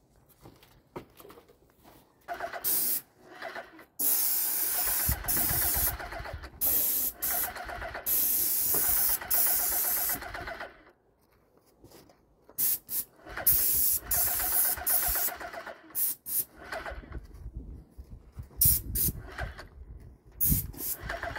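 Paint spray gun on an extension wand hissing as it sprays paint onto the house wall, the trigger pulled and released: one long spray of about six seconds, a pause, a shorter spray, then several quick bursts near the end.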